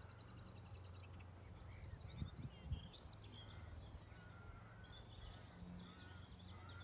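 Several small birds singing and chirping at once, with quick trills and whistled notes, over a steady low hum. Two dull thumps come a little over two seconds in.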